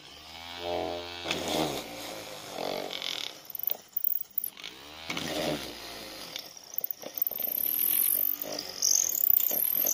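Homemade drill driven by a 775 DC motor with a drill chuck, running and boring a small bit into plywood. Its pitch shifts about a second in and again around five seconds in, and it grows rougher and louder near the end.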